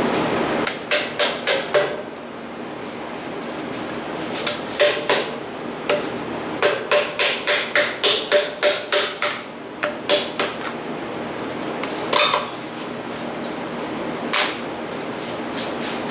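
Hammer blows knocking wooden shims out of a freshly welded steel linkage assembly, in short bursts of sharp strikes, about three a second at the busiest, with the steel ringing faintly after the hits.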